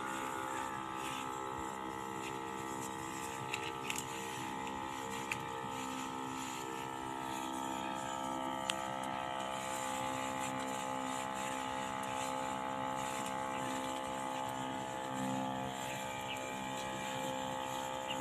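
A small motor humming steadily at one even pitch, with a few faint clicks.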